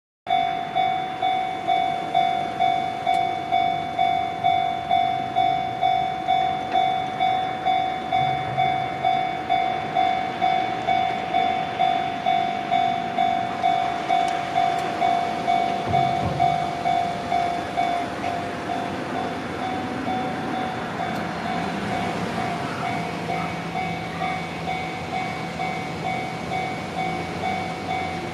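Railway level-crossing alarm ringing its electronic warning bell at about two strikes a second. In the second half an electric train of the Izuhakone Railway Sunzu Line runs through the crossing, and its running noise and a low motor hum rise over the bell.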